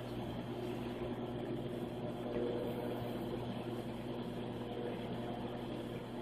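Reef aquarium pump equipment humming steadily, with a low hiss under the hum.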